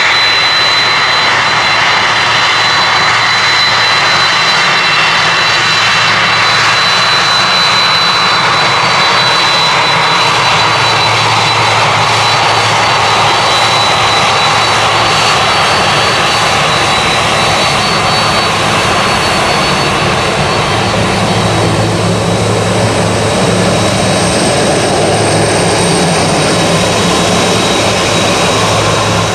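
Boeing 767's twin turbofan jet engines running at taxi power as the airliner rolls past: a steady loud roar with a high-pitched whine, and a deeper rumble that grows in the second half as the jet turns away.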